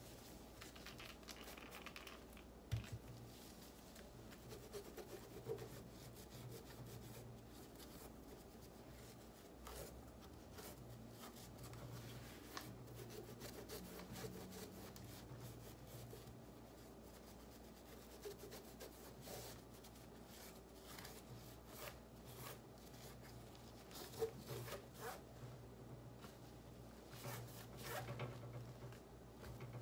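Faint rubbing of a cloth wiped over the case, grille and control panel of a small guitar practice amplifier, with a few short knocks as the amp is handled.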